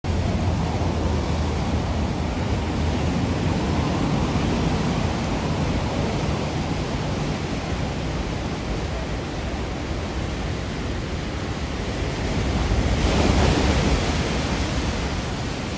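Heavy 20-foot ocean surf breaking and washing over rocks, a steady rush that swells to a louder crash about 13 seconds in.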